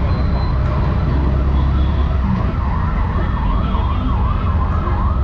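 A siren starts about two seconds in, its pitch rising and falling quickly, about twice a second, over a steady low rumble of vehicle traffic.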